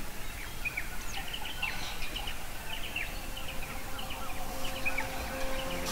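Many birds calling around a lake, with short, quick chirps that drop in pitch, over a steady low rumble of background noise. A held musical note fades in near the end.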